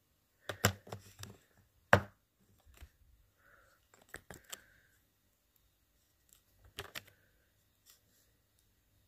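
Hard plastic Lego minifigure parts clicking and tapping as they are handled and pressed together: scattered sharp clicks in small clusters, the loudest about two seconds in.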